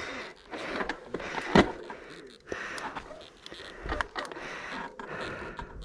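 Mountain bike rolling down a rocky dirt trail: tyre noise over dirt and stones, with the bike rattling and sharp knocks as it hits rocks, the hardest knock about a second and a half in.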